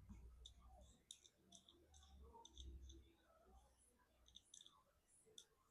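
Faint, scattered small clicks and ticks of a precision tool working on the iPhone's charging-port screws and parts, with low handling rumble during the first four seconds or so.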